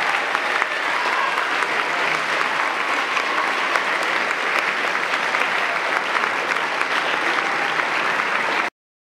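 Audience applauding steadily, a dense patter of many hands clapping, which cuts off abruptly near the end.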